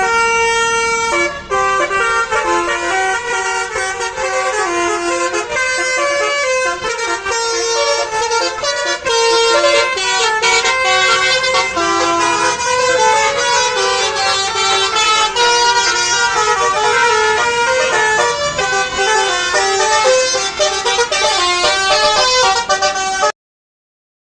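Musical 'telolet' basuri air horns on three buses playing overlapping melodies from their horn modules, a loud, constantly shifting tangle of tunes that cuts off suddenly near the end.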